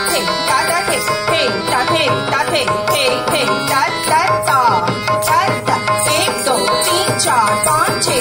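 North Indian classical music for Kathak dance: tabla playing a steady rhythm under a melody of sliding, ornamented notes.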